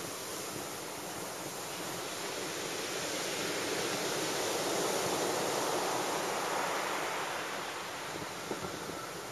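Heavy surf breaking and washing up a sandy beach: a steady rush of surf that swells louder about halfway through, then eases off.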